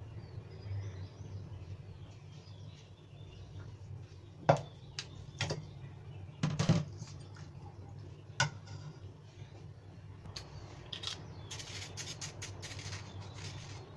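A metal spoon knocking and scraping against a ceramic bowl and a plastic colander while chicken pieces are spooned from one to the other, a handful of sharp clinks, over a steady low hum. Near the end comes a quick run of small clicks and rattles as a plastic sugar container is handled.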